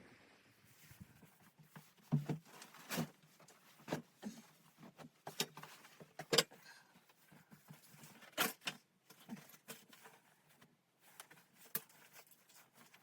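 A string of scattered, sharp knocks and clicks at an irregular pace, the loudest about six and eight and a half seconds in.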